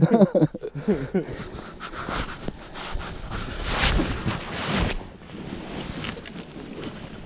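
Jacket fabric rustling and rubbing over the camera's microphone, with light handling knocks, as the angler moves in the boat; wind buffets the microphone. The rustling is densest about four seconds in and dies down after about five seconds.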